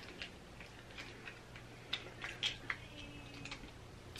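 Faint, scattered clicks and small cracks of snow crab leg shells being broken and peeled by hand, a few sharper snaps about two to three seconds in.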